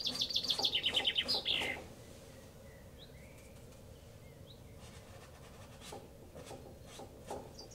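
A small songbird singing a rapid, high trill that steps down in pitch, lasting about two seconds at the start and starting again right at the end. In between, a few faint taps of a paintbrush dabbing on canvas.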